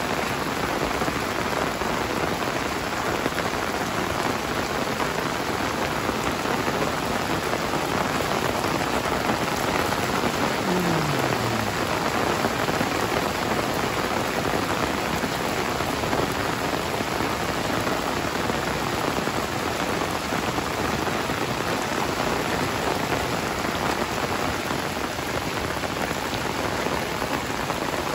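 Heavy rain pouring steadily onto a paved road and vegetation: a dense, even hiss that holds at one level throughout. A faint short falling tone passes briefly about ten seconds in.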